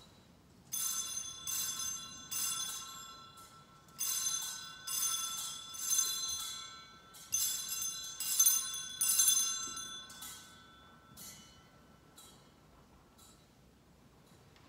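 Sanctus bells (altar bells) rung by a kneeling server at the elevation of the host during the Eucharistic prayer: three clusters of bright ringing strikes, each lasting a couple of seconds, followed by four fainter single rings about a second apart.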